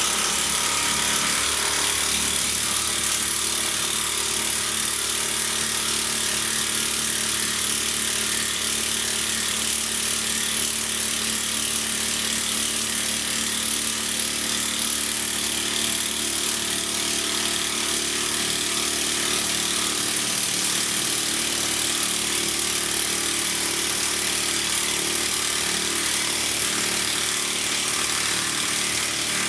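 Makita 40V XGT high-torque cordless impact wrench hammering steadily and without a break as it drives a 16 mm by 200 mm (5/8 in by 8 in) screw into timber with no pilot hole, under heavy load.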